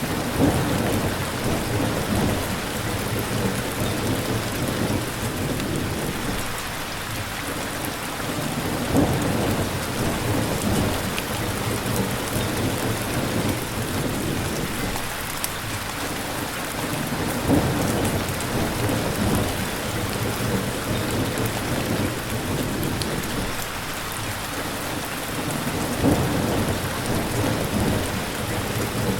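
Steady, heavy rain hissing on surfaces, with low rumbles of thunder swelling four times, about every eight or nine seconds.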